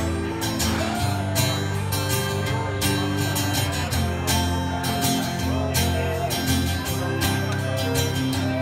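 Acoustic guitar strummed in a steady rhythm with a pedal steel guitar playing gliding, sliding notes over it: an instrumental break in a live country song, with no singing.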